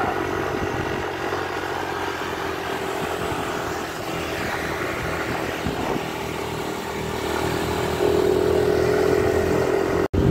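Motorcycle engine running while riding, with road and wind noise; it grows louder about eight seconds in, and the sound cuts out for an instant near the end.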